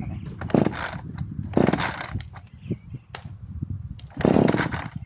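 Chainsaw's recoil starter being pulled three times, each pull a short rasp of the cord and the engine cranking over without catching.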